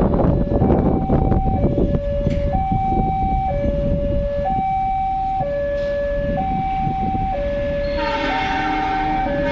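Railroad level crossing warning alarm sounding a steady two-tone signal, a lower and a higher tone alternating about once a second, which warns that a train is approaching. Road traffic rumbles during the first two seconds, and about eight seconds in a train horn starts to sound.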